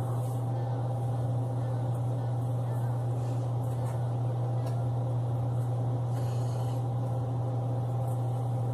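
A steady, unchanging machine hum, like an electric fan or appliance motor.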